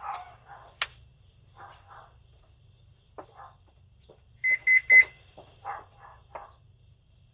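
Three short high-pitched electronic beeps in quick succession, the loudest sound here, among scattered faint knocks and rustles and a sharp click near the start.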